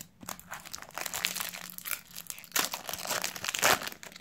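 Foil wrapper of a trading-card sachet crinkling and rustling as it is opened and the cards are pulled out, with louder rustles about two and a half seconds in and near the end.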